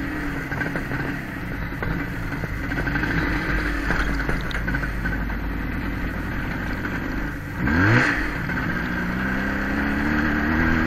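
Vehicle engine running under way with wind noise, revving sharply about eight seconds in, then pulling with a steadily rising pitch as it accelerates.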